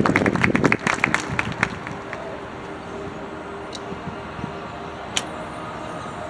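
Crowd applause in the stands dying away over the first second and a half. It gives way to a quiet, steady stadium background with faint held notes, and one sharp click about five seconds in.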